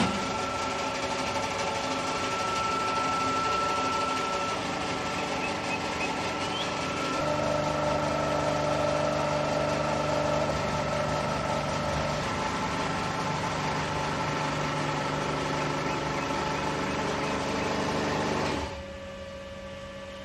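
Pump motor of a hydraulic valve pressure-test bench running steadily as it pressurises a clamped ductile iron gate valve for leak testing. Its tone shifts about seven seconds in, and it stops suddenly near the end.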